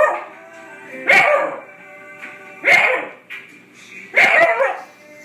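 A dog barks three times, about a second and a half apart, at a Swiffer mop that it is afraid of. Steady background music plays between the barks.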